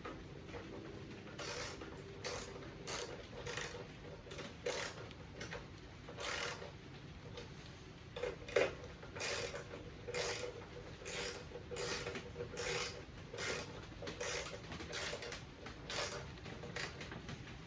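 Repeated short mechanical strokes of a hand tool on the snow blower's parts, about one stroke every three-quarters of a second, with a slightly louder knock about eight and a half seconds in.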